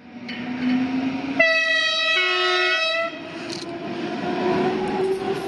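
Rhaetian Railway Ge 4/4 III electric locomotive running past with its train and sounding its horn once for about a second and a half, the tone changing partway through, over the rumble of the train rolling on the track.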